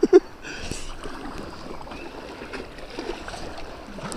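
River water running and splashing around a kayak, with a few sharp knocks right at the start. A brief high-pitched call sounds about half a second in.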